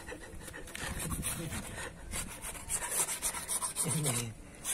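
Repeated rubbing and scraping strokes against the slats of a wooden picket fence, a quick run of short scratchy strokes.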